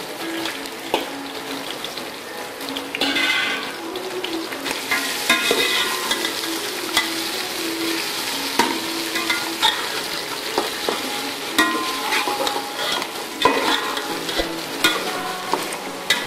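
Bone-in beef pieces sizzling in ghee with fried onions in an aluminium pot, while a slotted metal spoon stirs them, clicking and scraping against the pot at irregular intervals. This is the meat being fried into the onion tadka.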